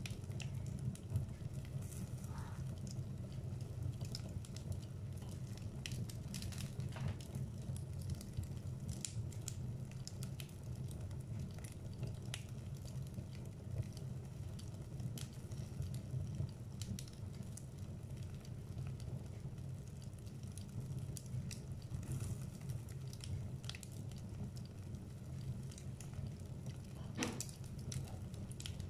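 Wood fire burning in a fireplace: a steady low rumble of flames with scattered sharp crackles and pops from the burning logs, one louder pop near the end.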